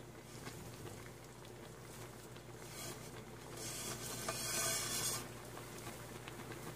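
Pot of broth simmering with faint small bubbling pops. A louder hiss rises for about a second and a half around the middle.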